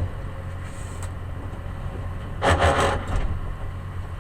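Small rail maintenance speeder's engine running low and steady, with a sharp click at the start and a short clatter about two and a half seconds in.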